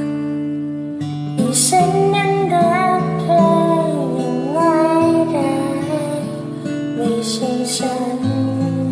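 A woman singing a slow Thai ballad over acoustic guitar accompaniment. The voice comes in about a second and a half in, after a moment of guitar alone.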